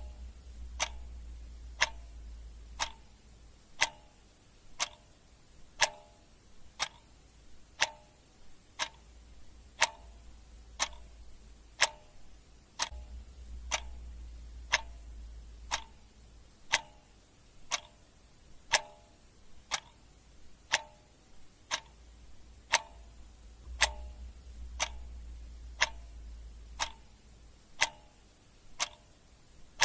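Clock ticking steadily, about one tick a second, each tick a sharp click with a short ring.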